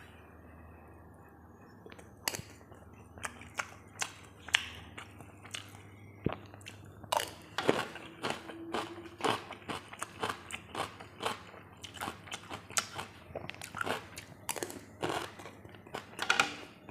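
Close-miked eating sounds: a person biting and chewing crunchy food from a meal of braised catfish, stir-fried cauliflower and cucumber. The first crunches start about two seconds in and come thick and fast from about seven seconds on.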